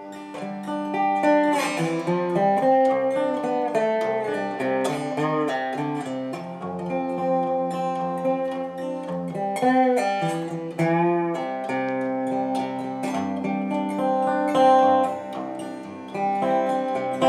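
Background music: acoustic guitar, plucked and strummed, with changing chords.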